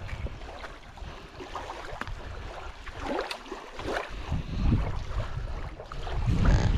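Wind buffeting the microphone in gusts, strongest about four and a half seconds in and again near the end, over lake water lapping at the shoreline.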